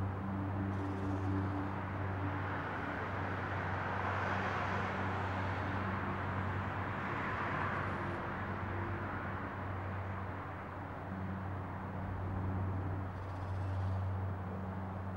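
Motor-vehicle traffic: a steady low engine hum, with road noise that swells and fades in the middle as a vehicle passes.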